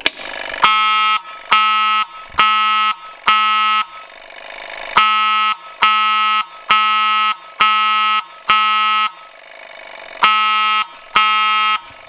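Notifier 34-24 mechanical fire alarm horn sounding in short, even blasts, driven by a Couch coded pull station: four blasts, a pause, five blasts, a pause, then two, spelling out the station's code 4-5-2. A faint mechanical whirr fills the gaps between the groups.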